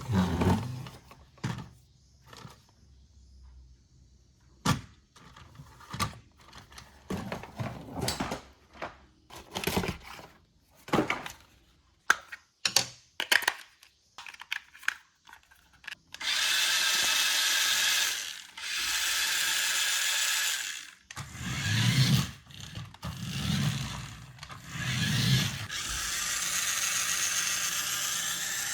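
Plastic toy parts being handled, clicking and knocking, then the small electric motor of an RC toy running in several bursts of a few seconds each.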